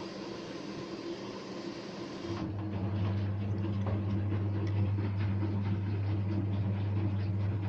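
Ardo washing machine running: a steady hiss, then about two seconds in a louder, steady low hum sets in.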